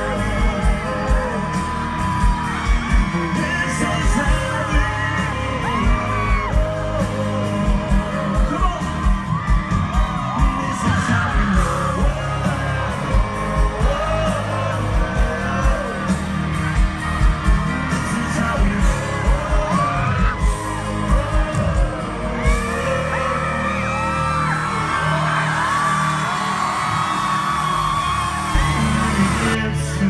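Live country concert heard from the crowd through a loud PA: a male singer singing over a full band with a steady kick-drum beat. The drum beat drops away for several seconds in the last third and comes back near the end.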